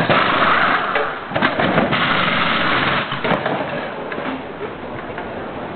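Pneumatic wheel guns whirring as they spin Formula One wheel nuts during a pit stop, in two loud bursts over the first three seconds.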